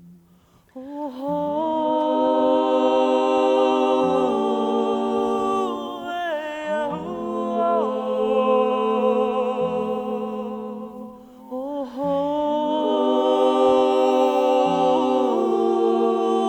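A small vocal ensemble humming a wordless lullaby a cappella, several voices holding long notes in harmony and sliding between pitches over a low drone. The voices come in about a second in and ease off briefly just past the middle before swelling again.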